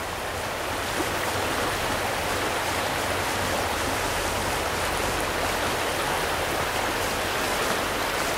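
Shallow stream rushing over rocks and boulders in a riffle, a steady even rush of water.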